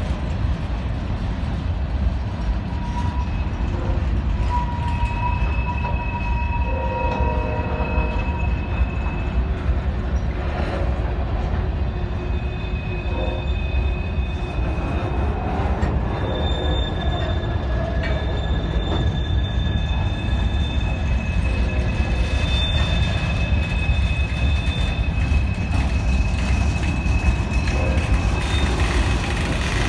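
Loaded freight cars (covered hoppers and tank cars) rolling slowly past with a steady rumble of wheels on rail. Thin, high wheel squeals come and go for a few seconds at a time.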